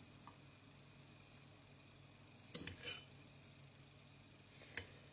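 Sugar being added to chopped onion in a small jar. A sharp clink and a short rustle come about two and a half seconds in, and another light clink near the end, with quiet between.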